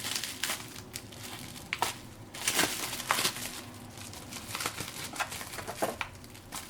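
Packaging crinkling and rustling in the hands as a small squeeze toy's wrapper is handled and opened, with irregular sharp crackles, busiest about halfway through.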